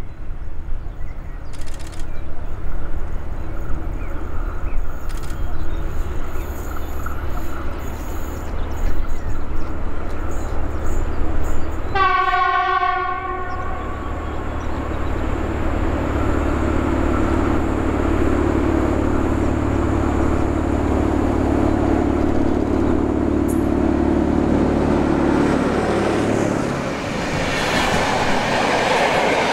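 Newag Dragon E6ACTd locomotive approaching on its diesel engine, which runs steadily and grows louder as it nears. About twelve seconds in it sounds one long horn blast on a single pitch lasting about two seconds. Near the end the locomotive's engine sound drops away as it passes, and the passenger coaches roll by with wheel clatter.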